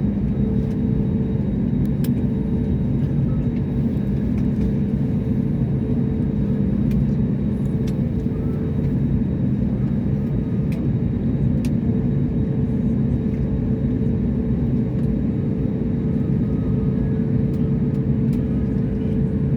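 Steady airliner cabin noise: a constant low rumble with a steady engine hum that holds level throughout, with a few faint ticks.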